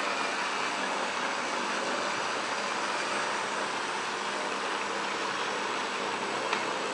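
Märklin H0 model freight train of covered and hopper wagons rolling over metal M-track: a steady, even rolling noise of many small wheels on the rails, with a single small click about six and a half seconds in.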